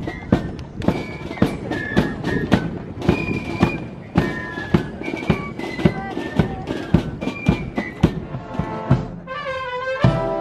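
Guards military marching band: drums beating a steady march at about two beats a second under a high piped melody. Full brass comes in at the very end.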